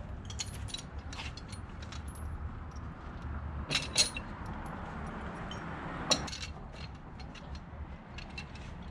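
Metal clinking and clanking of an engine-hoist chain and load leveler being handled, with sharper clanks about four seconds in and again near six seconds, over a low steady rumble.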